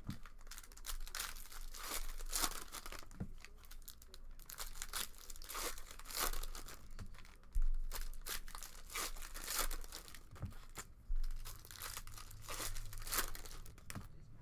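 Foil trading-card packs of Panini Prizm soccer being torn open and their wrappers crinkled by hand, an irregular run of crackling and tearing. Two dull thumps stand out, one about halfway through and another a few seconds later.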